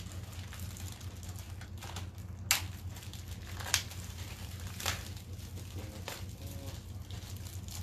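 Sealed packaging of a baseball bat being pried open by hand: crinkling and rustling, with four sharp snaps about a second apart.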